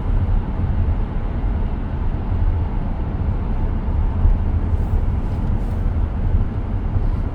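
Steady road and tyre rumble inside the cabin of a 2023 Tesla Model X driving at highway speed. The all-electric car adds no engine sound.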